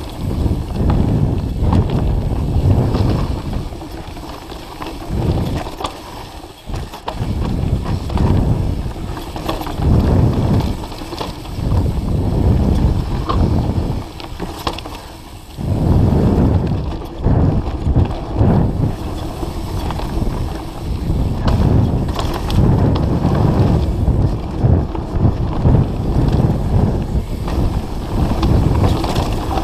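Mountain bike descending a dirt singletrack at speed: wind buffeting the microphone along with tyre roar and the bike rattling over bumps, surging and easing every second or two.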